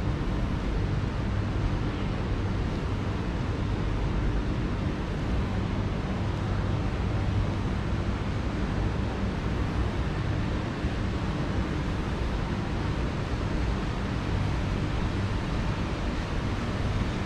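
Steady low city background rumble with a faint continuous hum underneath and no distinct events.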